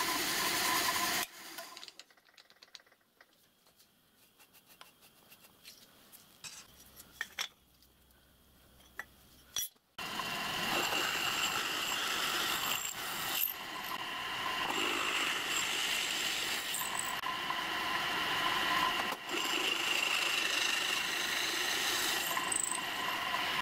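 Milling machine end mill cutting a slot in plain steel angle: a steady cutting noise with a high whine. It stops about a second in, leaving several seconds of near silence with a few small clicks, then the cutting starts again about ten seconds in and runs on.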